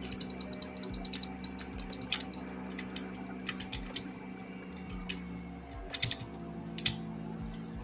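Irregular light clicks from someone working at a computer, over a steady low electrical hum.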